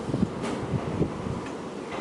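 Wind buffeting the microphone in an uneven low rumble, with a few faint scattered clicks and knocks.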